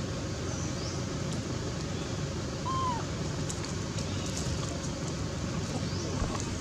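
Outdoor ambience: a steady low rumble, with one short arched call about three seconds in and a few faint high chirps and clicks.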